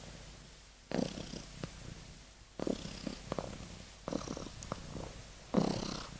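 Sleeping kitten snoring: a rattling, purr-like sound on each breath, four breaths about a second and a half apart, each starting sharply and then fading.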